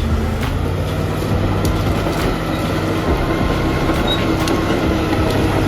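Heavy diesel forestry machine running steadily under load, with a constant low engine drone and scattered sharp clicks and knocks.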